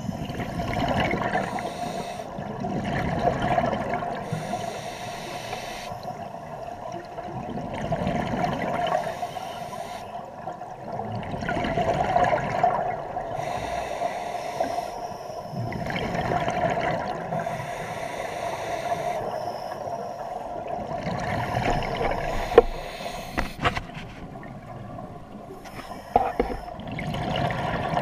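Scuba regulator breathing underwater: exhaled bubbles rush out of the regulator in swells about every four seconds, one swell for each breath. A few sharp clicks come near the end.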